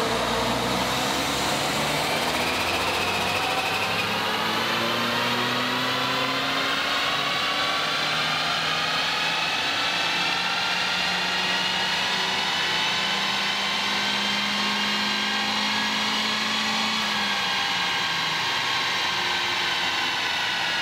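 2022 Honda Civic Si's 1.5-litre turbocharged four-cylinder running on a chassis dyno during a pull, its pitch climbing slowly and steadily under load.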